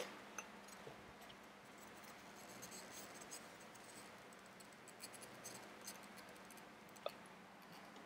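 Near silence: room tone with faint scattered scratching and light clicks, and one sharper click about seven seconds in.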